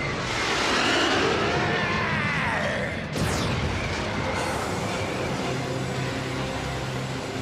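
Cartoon jet sound effects: a jet engine whine and rush with sweeping pitch glides, then a sharp whoosh about three seconds in, over background music with held chords.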